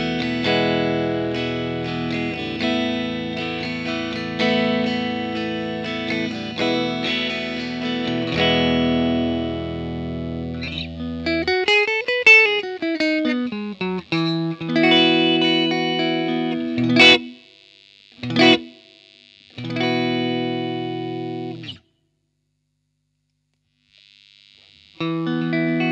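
Electric guitar played through effects pedals with distortion, sustained chords ringing. About twelve seconds in a note sweeps up in pitch and back down, then come short separate chord stabs with gaps between them, about two seconds of silence, and the playing starts again near the end.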